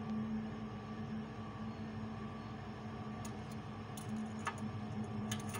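A steady low mechanical hum of plant-room machinery, with a few light clicks and taps from handling the boiler's ignition electrode kit and burner parts, several of them close together near the end.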